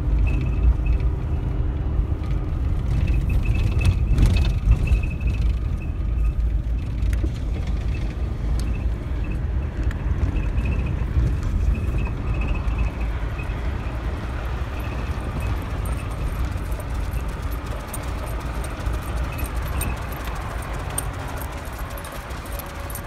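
A car rolling slowly over a bumpy dirt road, heard from inside the cabin: a steady low rumble of tyres and suspension with scattered knocks and rattles.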